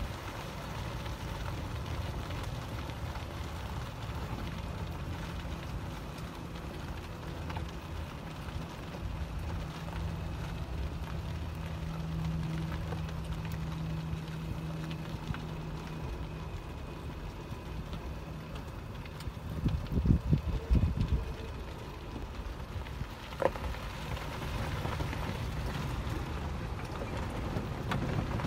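Low, steady rumble of a vehicle's engine and tyres as it drives slowly along a rough road. A burst of loud knocks comes about twenty seconds in.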